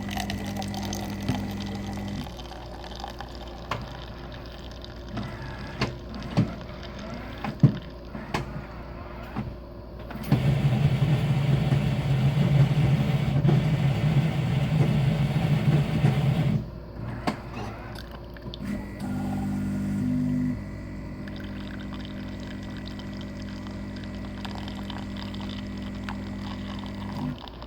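Coffee machine brewing: a steady hum with scattered clicks, then a louder buzz for about six seconds in the middle. A steady hum follows for most of the rest.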